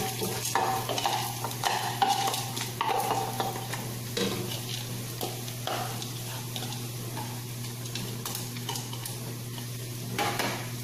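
Dried split peas poured from a bowl into an aluminium pressure cooker, landing with irregular clicks and rattles over the first few seconds, over a steady sizzle of onion frying in olive oil in the pot.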